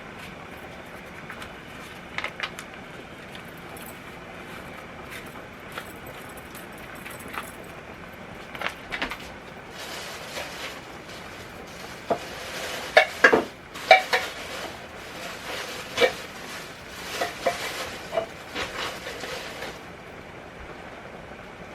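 A spoon stirring chili in a Presto electric kettle, clinking and scraping against the pot in a busy run of sharp strikes through the middle and later part.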